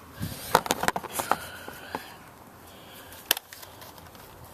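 Sharp plastic clicks and knocks of a Nerf Roughcut blaster being handled while it is reloaded. There is a quick cluster of clicks in the first second or so and one more sharp click a little past three seconds in.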